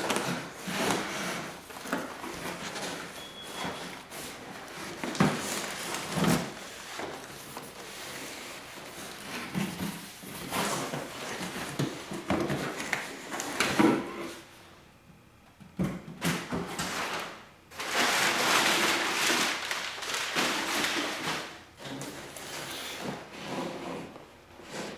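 An airsoft rifle's box and parts being handled in an unboxing: a series of knocks, clicks and scrapes, with a longer rustling stretch a little past the middle.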